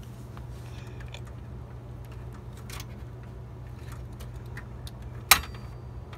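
Hands working inside an open desktop computer case: a few faint clicks of parts and cables being handled, then one sharp click about five seconds in, over a steady low hum.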